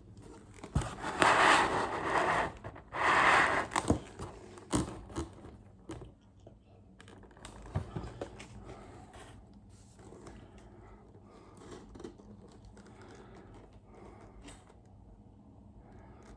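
Model kit packaging being torn open: two loud tearing rips in the first few seconds, followed by quieter crinkling, rustling and handling with a few sharp clicks.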